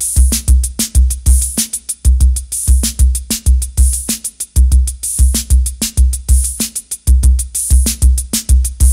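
Old-school hip hop drum machine beat with a deep, heavy bass drum, snare hits and fast hi-hat ticks, with no vocals.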